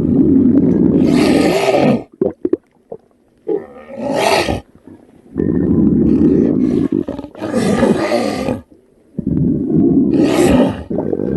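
Exaggerated cartoon stomach-rumble sound effect: loud, roar-like growling and gurgling in four long bouts, with a short run of crackling gurgles about two seconds in.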